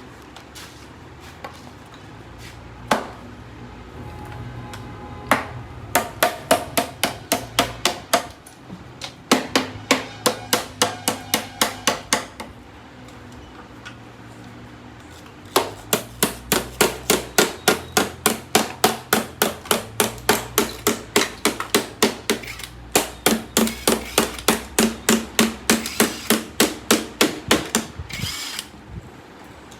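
Hammer blows struck in quick, even runs of about three a second, with short pauses between the runs and a few single knocks before the first run.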